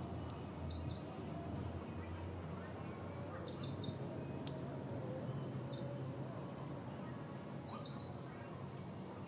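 Small birds chirping outdoors: short groups of two or three high chirps every few seconds over a steady low background hum, with one sharp click about four and a half seconds in.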